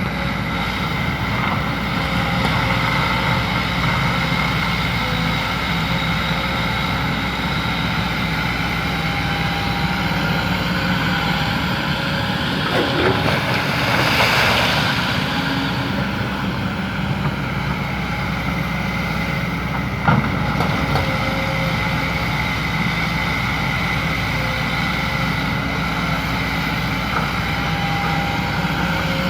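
Excavator's diesel engine running steadily while working, swelling louder with a rush of noise about halfway through, with a single sharp knock about two-thirds of the way in.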